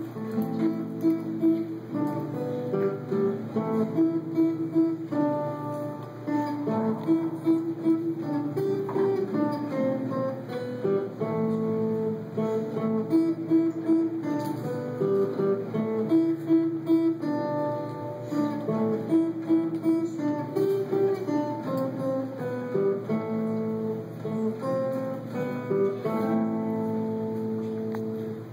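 Acoustic guitar music: plucked melody notes over strummed chords, played steadily and ending right at the close.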